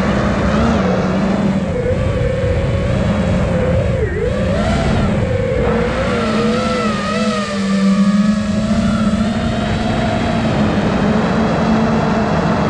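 Brushless motors and propellers of a 5-inch FPV quadcopter (iFlight Nazgul Evoque), heard from the drone itself: a whine whose pitch rises and falls with the throttle, dipping sharply about four seconds in, over a rush of wind.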